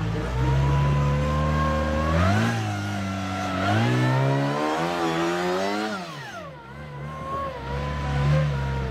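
Rock-crawling buggy's engine revving under load on a steep rock climb. It runs steadily, then rises sharply about two seconds in. It rises again near four seconds and keeps climbing to a peak near six seconds, then drops off sharply and settles back to a lower, steadier note.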